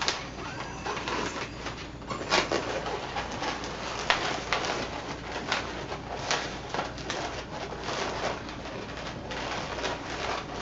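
Latex modelling balloons squeaking and rubbing against each other as they are twisted and bent, with many short squeaks and a few brief rising and falling squeals.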